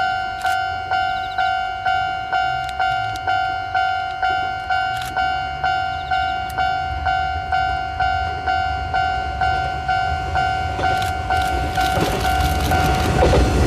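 Railway level-crossing alarm ringing steadily, an electronic bell struck about twice a second. An approaching 185 series electric train's rumble swells over it in the last couple of seconds.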